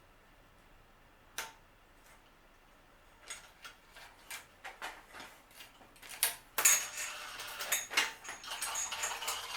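Metal tools and bicycle parts clicking and clinking during hands-on disassembly: scattered single clicks at first, then a denser metallic clatter and rattle over the last three seconds.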